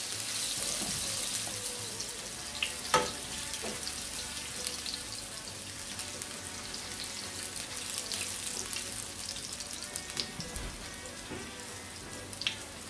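Minced garlic sizzling in olive oil in a nonstick frying pan over medium heat, a steady crackling hiss. The spatula stirring it gives scattered light clicks against the pan, with a sharper tap about three seconds in.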